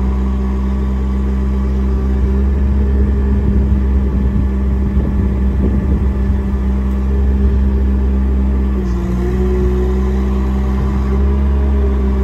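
Miller EnPak engine-driven compressor, hydraulic pump and generator unit running steadily, powering the service truck's hydraulic crane; its note shifts slightly about nine seconds in.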